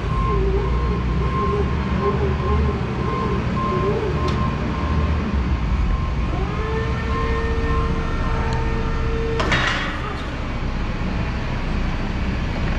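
CAT/Mitsubishi FBC18N electric forklift: the motor whine wavers as the truck maneuvers. About six seconds in a steady whine from the hydraulic pump starts as the forks are raised on the mast, and it stops with a short clunk a few seconds later.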